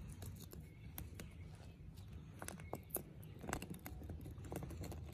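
A few light knocks and scrapes as a piece of petrified wood is set down on a concrete sidewalk and handled, the loudest about two and a half to three and a half seconds in, over a low steady rumble of wind on the microphone.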